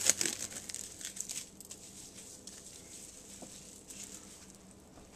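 Plastic cling wrap crinkling as it is stretched and pressed around a bowl, sharp crackles in the first second and a half, then only faint crackles and a small click.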